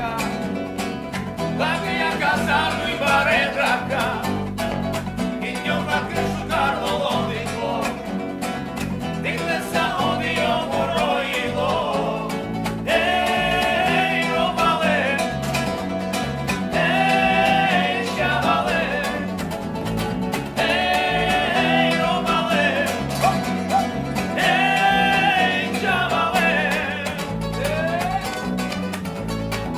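Acoustic guitars strummed and picked over an electric bass, with male voices singing. In the second half the voices sing together in about four long held phrases.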